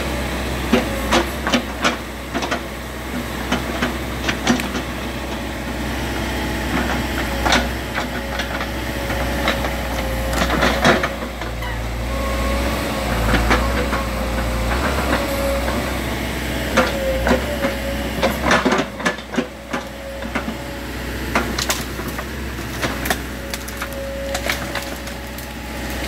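Caterpillar 420F backhoe loader running, its diesel engine a steady low rumble with a wavering whine above it, while the rear bucket digs through logs and roots, making scattered sharp cracks and knocks of breaking wood.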